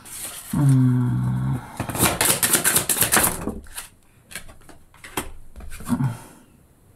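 A deck of tarot cards being shuffled: a quick flurry of papery flicks, followed by a few single taps as cards are handled and laid down. A short hummed voice sound comes about half a second in.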